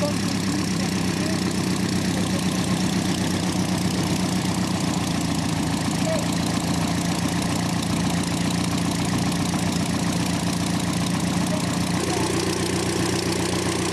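Stampe SV.4 biplane's piston engine idling steadily with the propeller turning. About twelve seconds in the engine note shifts and a new tone joins it.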